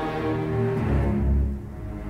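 Orchestral music with low sustained string notes under higher parts, dipping briefly in level near the end.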